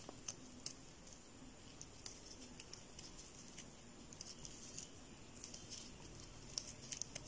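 Faint, irregular ticks and rustles of a crochet hook working t-shirt yarn while single crochet stitches are made.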